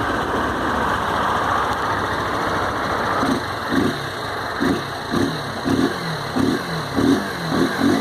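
Honda CG 160 Titan's single-cylinder four-stroke engine idling steadily, then revved in short quick throttle blips, about two a second, from about three seconds in. It runs without the strange engine noise the owner traced to a loose drive chain, now tightened and lubricated.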